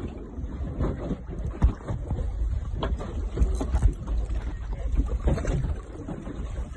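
Wind buffeting the microphone in uneven gusts, with short knocks and slaps of water against a small boat's hull.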